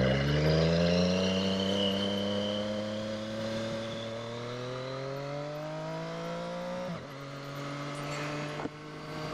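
Naked sports bike's engine pulling under acceleration, its pitch rising slowly for about seven seconds, then dropping at a gear change and running on steadily.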